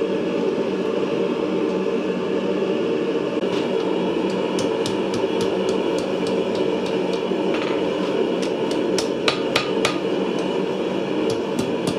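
Hand hammer striking hot steel on an anvil while forging a sickle blade: irregular blows that start a few seconds in and come more often after, several ringing louder around the ninth and tenth second. A steady low rushing noise runs underneath.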